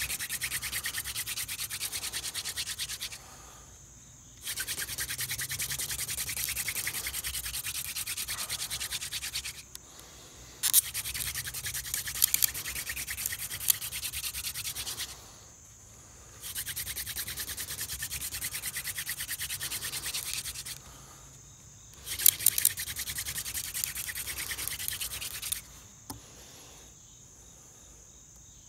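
Hand drill spindle spun back and forth in a soft, degraded tulip poplar fireboard: a fast, dense wood-on-wood rubbing hiss in five bouts, each broken by a pause of about a second as the hands go back to the top of the spindle, drilling the fresh notch to build hot dust for an ember. The drilling stops about 26 seconds in, leaving faint insect chirping.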